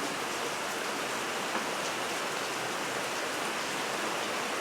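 Steady rain falling, an even hiss with no other clear sound.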